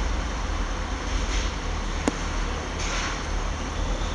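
Class 158 diesel multiple unit idling at a platform: a steady low rumble from its diesel engines, with a couple of short hisses and one sharp click about two seconds in.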